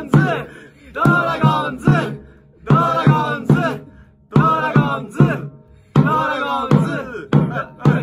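A baseball cheering chant sung by voices in short phrases about a second long, with brief pauses between them.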